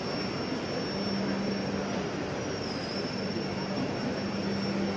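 Steady background noise of a large, busy exhibition hall: an even rumble with a constant faint high whine and a low hum that drops out and returns a couple of times.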